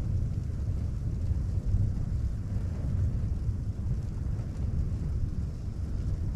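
Strong mountain wind buffeting a tent: a deep, steady rumble that swells and eases.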